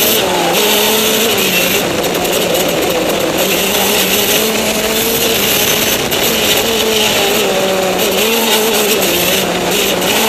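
Go-kart engine heard from on board, its pitch rising and falling as the kart accelerates and lifts through corners, over a steady high hiss.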